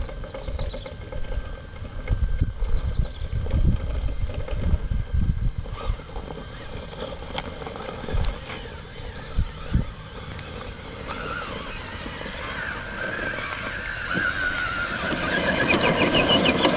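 Radio-controlled scale rock crawler grinding up a loose dirt slope, its electric motor and gearbox giving a whine that wavers in pitch and grows louder in the second half. There are irregular low thumps in the first half.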